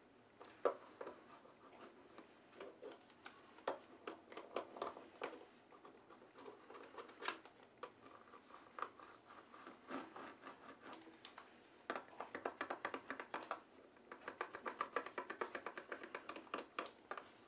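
Hard plastic wallpaper seam roller rolled and scraped over a vinyl chassis protector decal on the plastic chassis, pressing its edges down. The sound is scattered clicks and scrapes, then two runs of rapid ticking in the later half.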